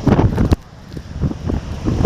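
Strong typhoon wind buffeting the microphone in gusts over heavy surf. The buffeting cuts off sharply about half a second in, then builds back up.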